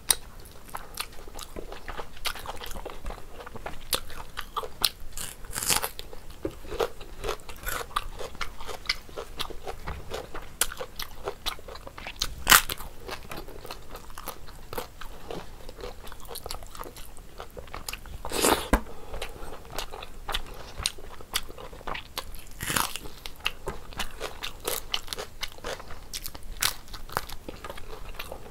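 A person chewing and crunching mouthfuls of food, with many small crisp crunches and a few louder ones, the loudest about twelve and eighteen seconds in.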